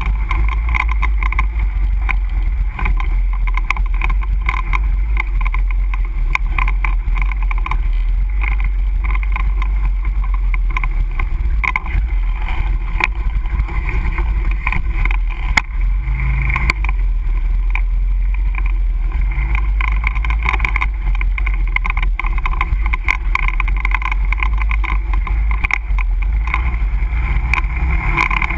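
Can-Am ATV engine running steadily as the quad rides along a rough dirt trail, with a low drone and frequent short knocks and rattles from the bumps.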